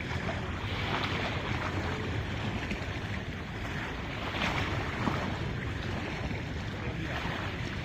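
Ocean waves washing, with wind rumbling on the microphone. The hiss of the water swells up about a second in and again about four and a half seconds in.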